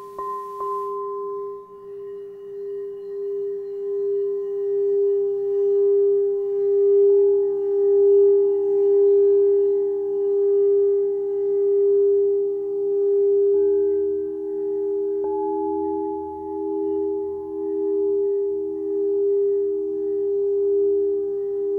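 Crystal singing bowls ringing with a steady, slowly pulsing tone. A second, lower bowl joins about seven seconds in, and the blend shifts again a little past halfway, the tones beating against each other in slow swells.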